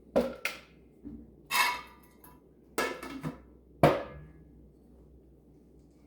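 A series of about eight sharp knocks and clatters of hard objects being handled and set down, a few with a short ring, the loudest near four seconds in.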